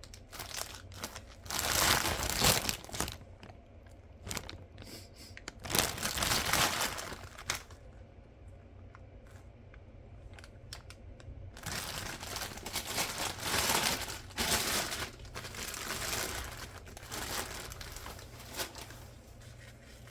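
Packaging being handled and unwrapped, crinkling and tearing in several bursts, the longest in the second half.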